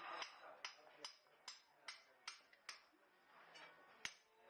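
Blacksmith's hammer striking metal on an anvil with a light ringing clink. There is a steady run of about seven blows a little under half a second apart, then a pause and one more blow near the end.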